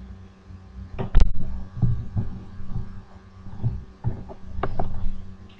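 A string of dull low thumps and knocks, the loudest a sharp knock about a second in, over a steady low hum.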